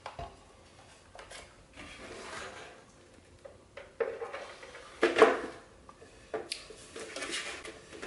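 Hard parts of an air purifier clacking and scraping together as its planter pot is fitted onto the base and fan unit: a few knocks and short scrapes, the loudest about five seconds in.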